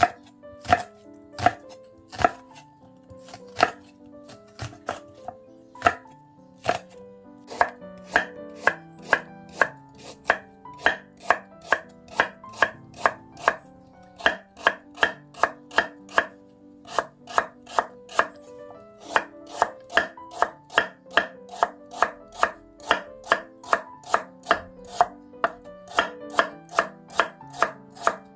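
Chef's knife slicing an onion and then a carrot on a wooden cutting board: the blade knocks sharply on the board with each cut, slowly and unevenly at first, then in a steady run of about two to three cuts a second from about eight seconds in.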